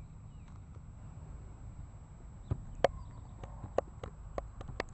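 Soccer ball being juggled with Adidas F30 boots: a run of short, sharp touches, two or three a second and unevenly spaced, starting about halfway through.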